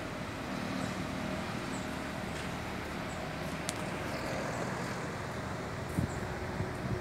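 Outdoor ambience of road traffic, a steady rumble and hiss, with faint high chirps repeating about once a second. A couple of low thumps come near the end.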